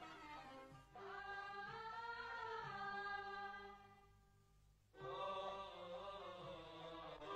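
Background vocal music: chant-like singing in long, slowly wavering held notes. It fades out about four seconds in and starts again about a second later.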